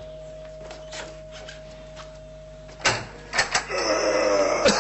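A few sharp clicks and knocks about three seconds in, as a front door's latch and handle are worked and the door is opened.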